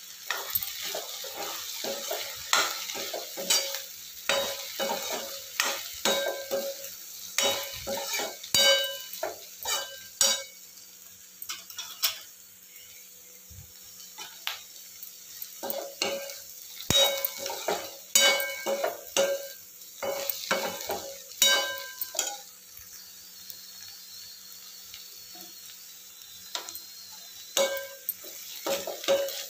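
Metal spatula stirring okra and onions in a metal kadai, clinking and scraping against the pan in runs of quick strokes over a steady sizzle of frying. The stirring stops twice for a few seconds, leaving only the sizzle.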